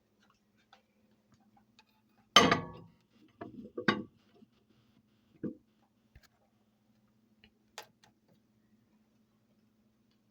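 A bowl being handled and set down: one loud clattering knock about two seconds in, then a few lighter clinks and clicks, over a faint steady low hum.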